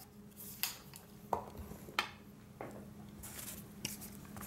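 Handling noise on a tabletop: about six light clicks and knocks, spaced roughly half a second to a second apart, as a plastic-and-metal telescopic pole is handled and set aside and a cardboard box is picked up.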